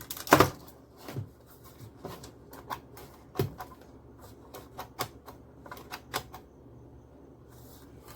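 Irregular sharp clicks and knocks of a power plug and adapter being pushed into a wall socket and handled, the loudest a double knock about half a second in; the clicking stops about six seconds in.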